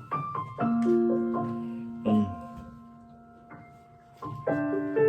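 Piano chords and single notes, each struck and left to ring and fade. Fresh chords come about a second in, again after two seconds, and near the end.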